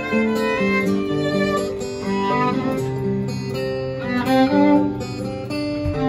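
Violin playing a melody of held, bowed notes, accompanied by acoustic guitar.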